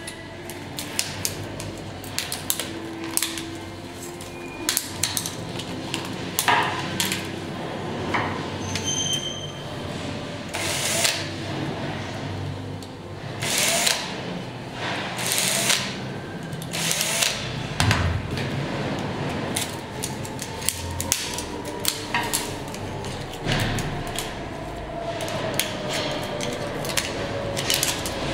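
Hand disassembly of old mobile phones: a cordless drill-driver runs in several short bursts around the middle to undo the phone screws, among clicks and knocks of a screwdriver and of plastic and metal phone parts being prised apart and set down on a metal workbench.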